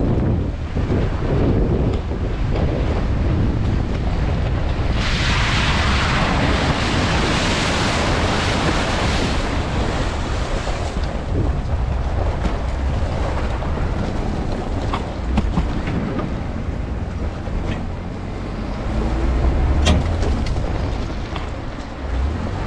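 Wind rushing and buffeting on the microphone, with a louder hiss from about five to eleven seconds in.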